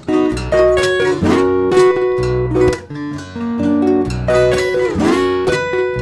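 Solo steel-string acoustic guitar played fingerstyle: picked melody notes over repeated low bass notes, the phrase coming round again about every four seconds.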